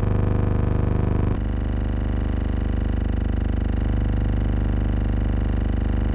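A steady, even engine drone with a fine regular pulse, shifting slightly in tone about a second and a half in.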